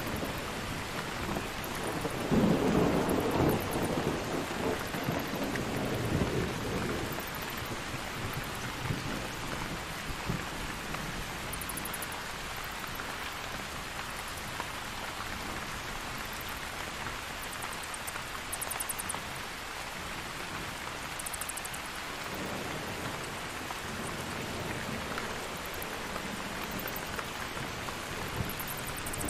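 Thunderstorm: steady heavy rain with a loud rumble of thunder about two seconds in that rolls on for several seconds, and another rumble building near the end. Faint, brief high-pitched bat squeaks come through here and there over the rain.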